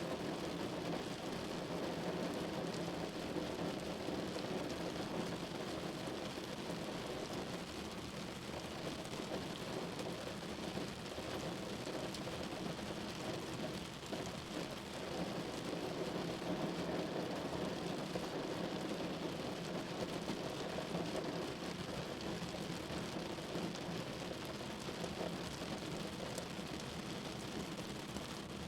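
Steady rain falling, an even, continuous hiss with no breaks.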